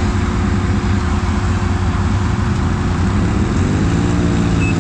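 Can-Am ATV's V-twin engine running hard under load in mud, revving up and climbing in pitch about three seconds in.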